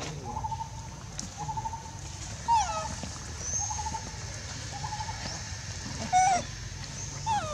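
Repeated short warbling animal calls, about one a second, with a few higher calls that slide steeply down in pitch and a louder harsh call about six seconds in.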